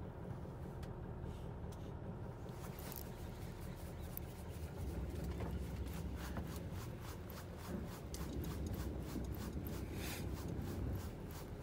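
A steady low rumble, with a rapid run of small scratchy clicks, several a second, starting about halfway through.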